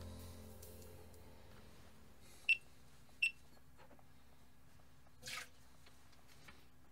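Background music fading out, then two short, sharp clicks with a slight high ring about a second apart, and a brief soft rustle near the end.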